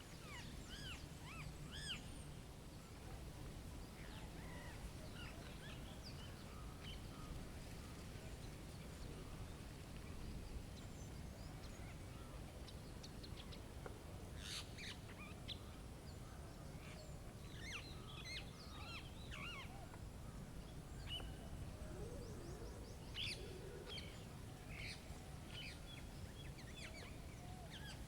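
Wild birds chirping and calling now and then, in short scattered notes that grow busier about halfway through, over a steady low background rumble.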